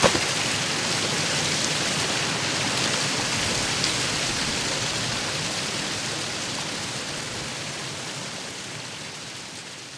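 Heavy rain pouring steadily, with a short knock at the very start; the rain fades away gradually over the last few seconds.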